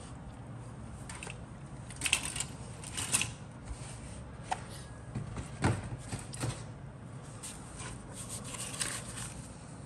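Cardboard kit box and paper instruction sheet being handled: scattered short rustles and scrapes, with one sharper tap a little past the middle.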